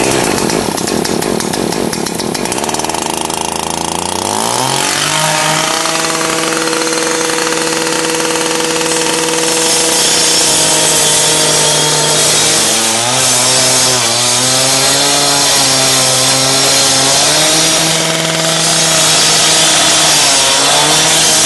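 Concrete saw running and cutting a concrete sidewalk slab. Its pitch climbs as it speeds up about four seconds in, then holds steady with brief dips in speed as it bites into the concrete.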